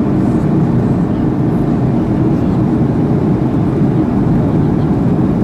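Steady cabin noise inside a Boeing 737-800 airliner on its descent, heard from a window seat: the CFM56-7B engines and the rush of air over the fuselage blend into an even, deep drone with no breaks.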